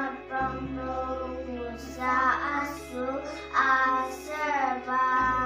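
Young children singing a Sunday-school song together, in phrases of held notes.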